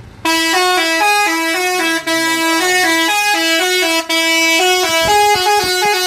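A bus's musical "telolet" air horn plays a loud tune of quickly changing notes. The tune breaks off briefly twice.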